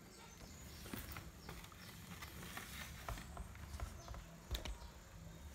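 Faint, irregular clicks and taps of a hand screwdriver and plastic door-trim parts being handled as a power window switch is screwed into place.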